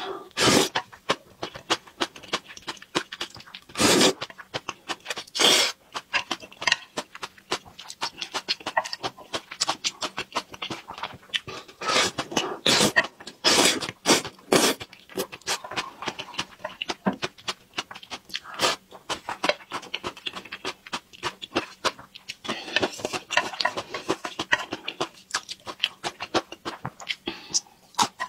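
Close-miked eating sounds: spicy stir-fried noodles slurped up in short, loud gulps several times, between steady wet chewing and lip smacks.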